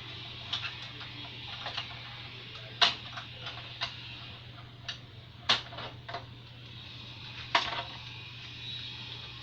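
Irregular sharp clicks and taps of hands working on a printer's plastic parts, three louder ones standing out about two seconds apart, over a steady low hum.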